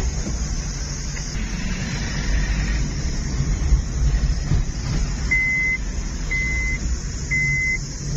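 Car cabin noise while driving up a winding hill road: a steady low engine and road rumble. About five seconds in, a high electronic beep starts sounding once a second, each beep about half a second long.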